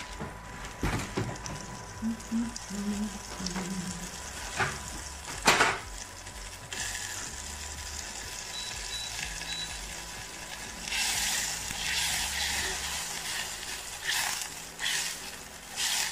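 Butter melting and sizzling in a small saucepan on an electric hob. A few clicks and knocks come in the first seconds, the loudest a sharp knock about five seconds in. Then a steady sizzle sets in, growing louder a few seconds later.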